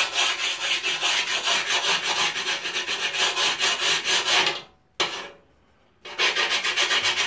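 Sharpening stone rubbed in fast, short back-and-forth strokes along the edge of a 4 mm toughened-glass pane, rounding the edge off. The rubbing stops about four and a half seconds in and starts again about a second later.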